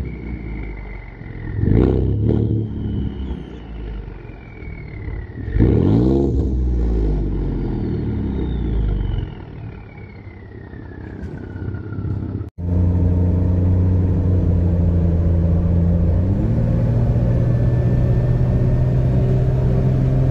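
Ford 3.5 EcoBoost twin-turbo V6 revved through an exhaust with the mufflers removed and only the catalytic converters left, heard at the tailpipe: a short blip about 2 s in and a bigger rev about 6 s in that falls back to idle, with a falling whistle after the revs. About 12 s in it changes to a steady exhaust drone heard from inside the cab while driving, stepping up in pitch a few seconds later.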